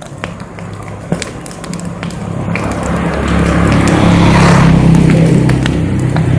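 A motor running with a low, steady hum that grows much louder from a couple of seconds in, with scattered light clicks.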